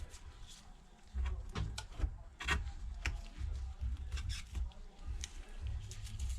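Small hand tools scraping, rubbing and clicking against an iPad's frame during bench repair work, over a low rumble of handling noise.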